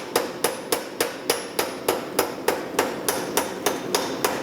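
Hand hammer striking hot steel on an anvil in a steady rhythm, about three to four blows a second, each with a short metallic ring.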